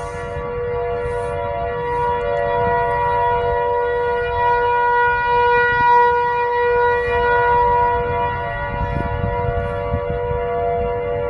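Outdoor tornado warning siren sounding one steady pitched wail, swelling slightly louder around the middle and easing again, over a low rumble.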